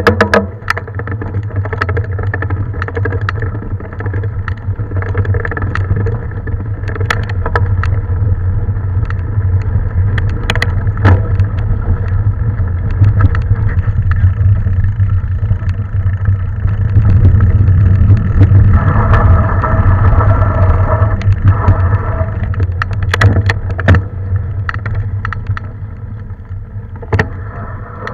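Mountain bike being ridden along a dirt trail: a steady rumble of tyres and wind with frequent knocks and rattles from the bike over bumps, and a higher buzz for a few seconds past the middle.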